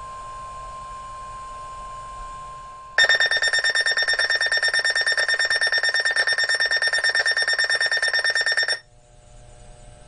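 NOAA Weather Radio warning alert tone, a steady tone near 1 kHz, for about three seconds. It then gives way to a loud, rapidly pulsing electronic alarm for about six seconds, which cuts off abruptly. This signals that a new warning is about to be broadcast.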